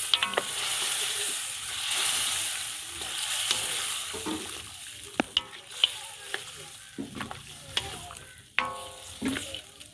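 Boiled meat added to a pot of frying onions and vegetables sizzles, the hiss fading after about four seconds. Then a spoon stirs the pot and knocks against it several times with sharp clinks.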